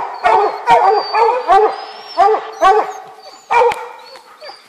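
Bear hounds treeing: several hunting dogs barking at a treed bear in quick repeated barks, about three a second, which tell the hunter that the bear is up a tree. The barking falls away briefly near the end.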